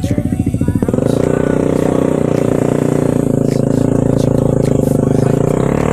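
Motorcycle engine working hard up a steep climb while hauling oil palm fruit. Distinct, evenly spaced firing pulses for about the first second, then the revs rise into a steady, higher drone.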